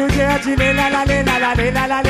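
Live seggae (Mauritian sega-reggae) band music through a PA, with a quick, even bass beat, drums and a gliding melody line over it.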